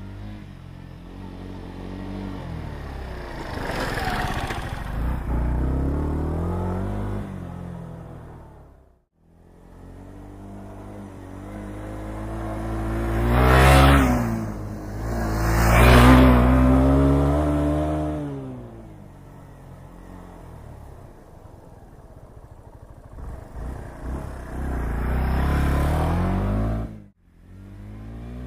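Yamaha SR125's single-cylinder four-stroke engine revving up and easing off again and again as the bike is ridden off-road, loudest in the middle. The sound cuts out briefly twice.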